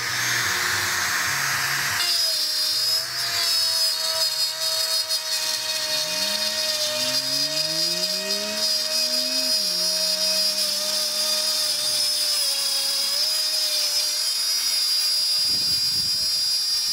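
Bosch plunge router, switched on at the outset, running steadily with a constant high whine as it routes a shallow recess into the back of an MDF panel around a cut-out opening.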